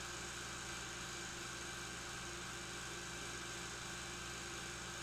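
Steady hum and hiss of an old 16mm film soundtrack, unchanging, with no other sound.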